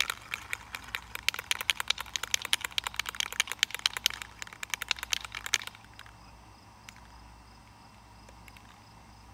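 Aerosol spray paint can being shaken hard, its mixing ball rattling, about eight to ten clicks a second. The shaking stops about six seconds in.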